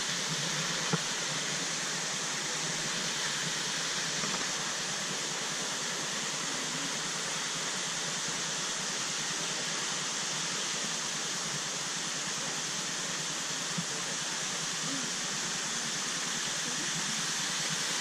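Steady rush of water from a waterfall cascade falling onto rocks and into a pool.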